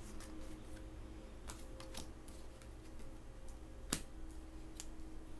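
Tarot cards being handled: scattered light clicks and snaps, the sharpest about four seconds in, over a faint steady hum.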